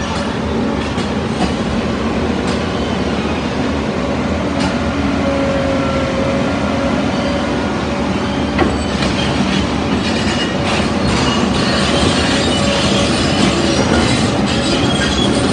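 Heavy Cat 395F crawler excavator working: its diesel engine and hydraulics run steadily under a faint held whine, with scattered knocks and clatter from about nine seconds in.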